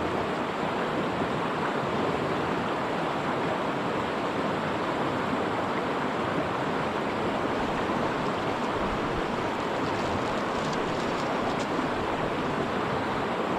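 Steady rush of moving water at the shoreline, even and unbroken, with a few faint ticks about ten seconds in.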